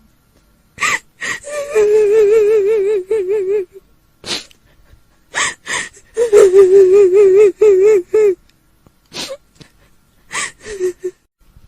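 A woman's voice crying as a kuntilanak ghost: two long, quavering wails about a second and a half to two seconds each, with sharp gasping intakes of breath between them.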